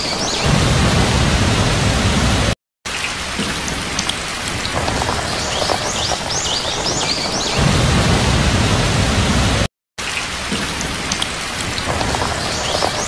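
Heavy rain with a low rumble of thunder, repeating about every seven seconds like a loop, with two brief cuts to silence.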